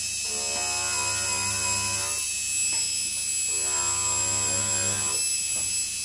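Washing machine motor running under a TDA1085C tachogenerator speed regulator: a steady electric whine over a low hum. A pitched, even humming tone swells and fades twice as the regulator holds the motor's speed.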